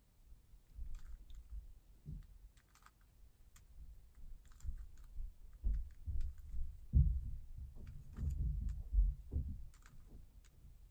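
3x3 Rubik's cube being turned layer by layer: quick plastic clicks and clacks as the layers rotate, with soft bumps of the cube in the hands, busiest in the second half.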